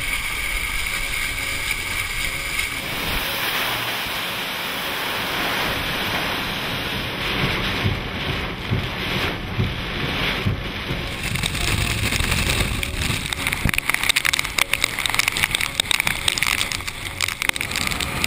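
Hurricane wind and heavy rain: a steady rush of noise, with wind gusting hard against the microphone. The sound shifts abruptly about three seconds in and again about eleven seconds in, and turns more gusty in the last few seconds.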